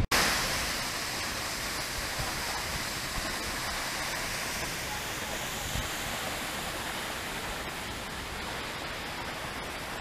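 Steady rushing noise of Jungbang Waterfall's water falling onto rocks, fading a little toward the end.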